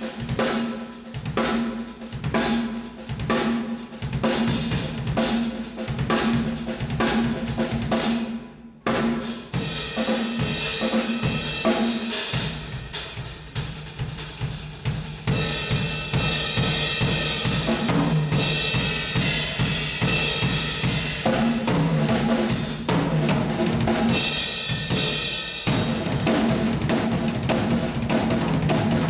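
Acoustic drum kit played as a solo: rapid strokes across snare, toms, bass drum and cymbals. The playing breaks off briefly about nine seconds in, then returns as a denser, more continuous passage.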